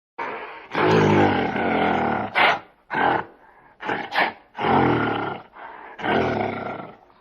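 A large animal calling: three long, low-pitched calls with several short, sharp calls between them.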